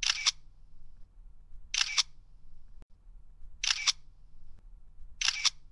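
Camera shutter clicks, four of them evenly spaced about every second and a half to two seconds, each a quick double click, over a faint low hum.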